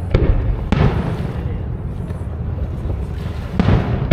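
Fireworks shells going off over a lake: two sharp booms close together near the start and another about three and a half seconds in, each trailing off, over a steady low rumble.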